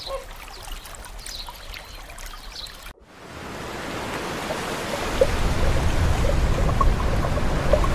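Faint calls from a flamingo flock over trickling water, cut off about three seconds in by a steady rushing wash of the sea that swells louder, with scattered small pops.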